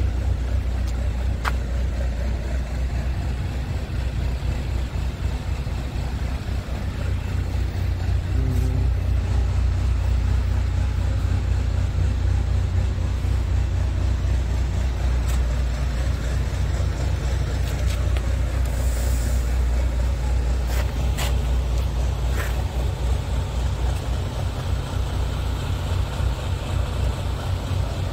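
Heavy diesel truck engine idling with a steady low rumble, a few light clicks over it.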